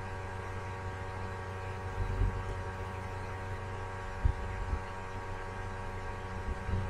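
Steady electrical hum made of several held tones, with a few dull low thumps, the sharpest just after 4 s.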